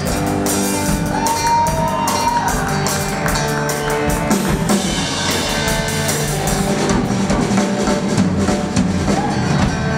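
Live band playing an instrumental passage with no vocals: drum kit, electric bass and electric guitar.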